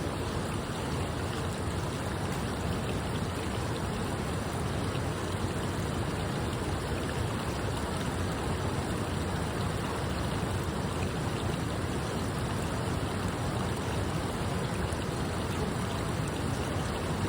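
Steady rushing noise with no distinct knocks or tones.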